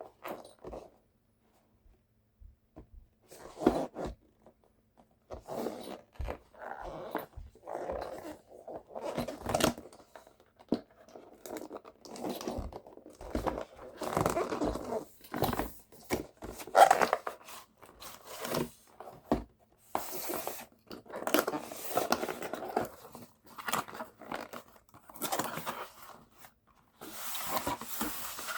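Parcel packaging being torn open and handled: irregular bursts of tearing, crinkling and rustling, starting after a few quiet seconds.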